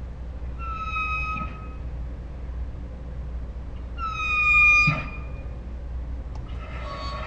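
Saint Bernard dog making high-pitched whining calls: two drawn-out squeaky whines, each about a second long and sliding slightly down in pitch, the second louder. A third, rougher call starts near the end.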